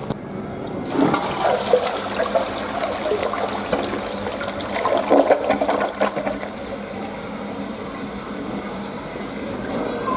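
Western-style flush toilet being flushed: a sudden rush of water about a second in, loud gurgling for about five seconds, then a steadier, quieter flow of water.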